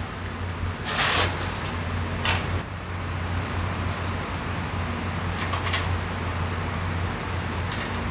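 A few light metallic clicks of hand tools against the motorcycle's rear axle and brake parts over a steady low hum, with a short scrape about a second in.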